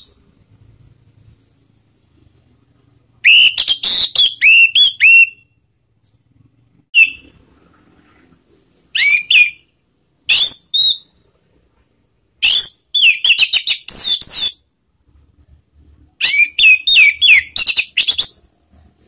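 Orange-headed thrush (anis merah) singing: loud phrases of quick, slurred whistled notes in six bursts, from a single note to two-second runs, with short pauses between.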